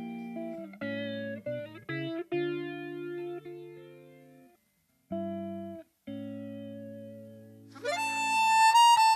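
Guitar playing a slow intro of ringing chords that die away, with two short breaks. Near the end a harmonica, cupped against a microphone, comes in with an upward-bending note that swells to become the loudest sound.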